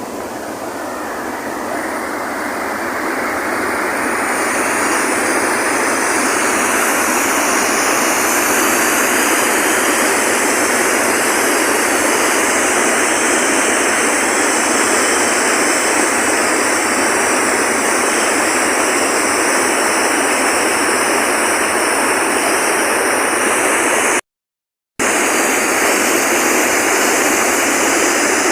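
Rushing water, like a rain-swollen stream or small waterfall, a loud, steady rush that builds over the first few seconds. It cuts out for a moment about 24 seconds in.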